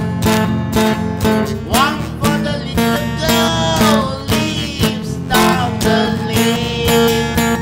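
Acoustic guitar strummed in a steady, even rhythm, with a sliding melody line over it.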